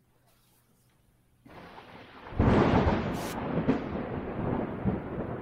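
Intro sound effect: a hiss comes in about a second and a half in, then a sudden loud rumbling crash about two seconds later that rolls on with crackles.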